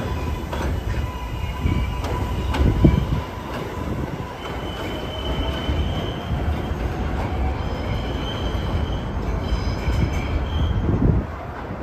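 R143 subway train pulling away along an elevated steel track, with a steady low rumble and wheels clacking over rail joints. Thin, high wheel squeals come and go through the middle of the pass.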